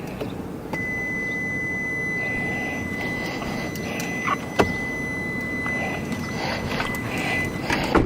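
A steady high-pitched electronic tone that comes on about a second in and holds for about seven seconds, over constant background noise, with a sharp click about halfway through.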